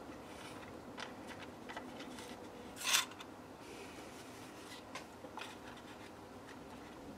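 Small clicks and light handling noise as fingers work plastic and brass servo linkage parts on a wooden hull, with one brief louder rustle about three seconds in, over a steady low room hum.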